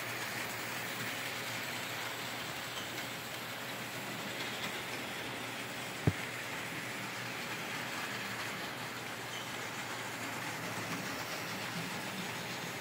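OO gauge Hornby model trains running on the layout's track, a steady whir of small electric motors and wheels on the rails. There is one short knock about six seconds in.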